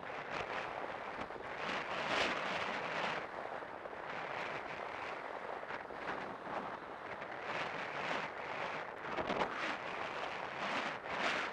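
Wind buffeting the microphone of a helmet-mounted camera on a galloping horse: a loud, rushing noise that swells in surges every second or two.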